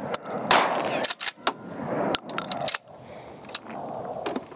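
A 12-gauge Remington 870 pump-action shotgun fires a buckshot round about half a second in. The shot is followed by the clack of the pump being run to cycle the shell, then a few shorter knocks as the gun is handled and set down.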